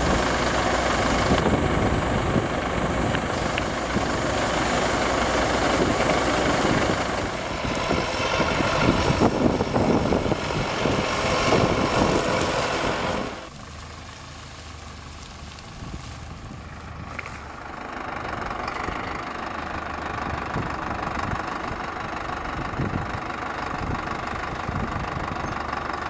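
Farm machinery engine running steadily. The sound drops abruptly about halfway through, stays quieter for a few seconds, then rises again.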